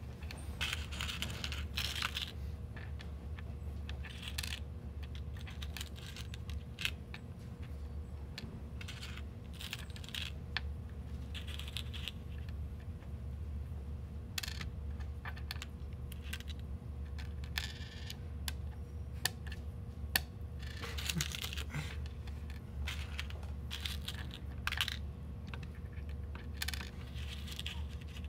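Small metal Purdue Pegboard pins, washers and collars clinking and rattling as fingers pick them from the board's cups and fit them into the holes: irregular light clicks and short clatters, over a steady low hum.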